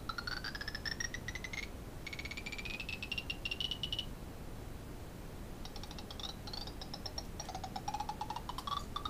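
LEGO Mindstorms NXT motors of a Rubik's cube solving robot whining as they drive the cube mechanism. Each run rises in pitch over a second or two, with a fast clicking of gears. There are four runs, with a pause of about a second and a half in the middle.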